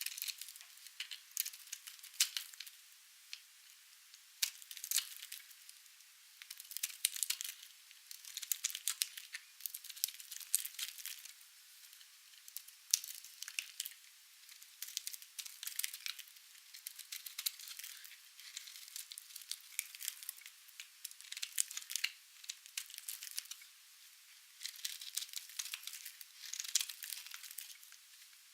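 Dry, painted soap being cut with a blade: crisp, crumbly crackling in clusters a second or two long, one after another with short pauses between. The sound is thin, all high with no low end.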